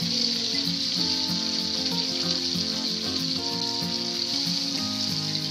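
Hilsa fish steaks sizzling steadily in mustard oil with onion and green-chilli paste in a frying pan, with background music of held notes underneath.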